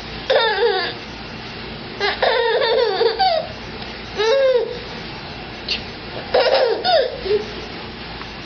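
Baby laughing in four short bursts, the sound going up and down in pitch.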